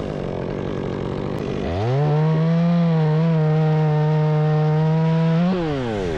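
Two-stroke chainsaw running at a low, steady speed, then throttled up to full revs about two seconds in. It holds there for about four seconds and winds back down near the end.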